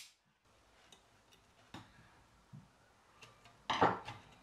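Sparse small clicks and knocks of wiring work: a crimped wire and a crimping tool handled over a sheet-metal control box, with one louder short clatter about 3.8 seconds in.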